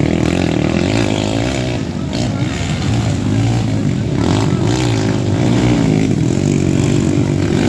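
Several small dirt bikes and underbone motorcycles revving through a dirt corner, their engines rising and falling in pitch and overlapping as the bikes pass one after another.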